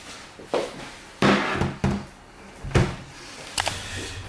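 A handful of household knocks and bangs: a longer, louder one a little over a second in, a sharp knock near three seconds, and a light click near the end.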